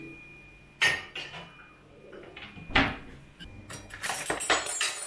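Household dishes and utensils being handled: separate sharp knocks and clinks, a heavier thump about three seconds in, and a quick run of clattering near the end.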